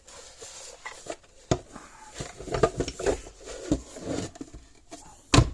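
Handling noise from reassembling a plastic solar fence charger housing: scattered clicks, light knocks and rubbing as the parts are fitted together, with a sharp knock near the end.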